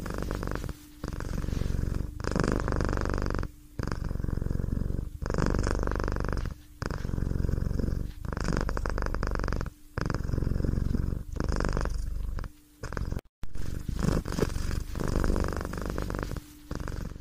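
A domestic cat purring steadily, in pulses of about a second to a second and a half with a short break between each.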